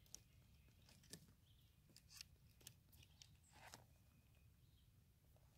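Near silence, with a few faint, scattered clicks and light taps.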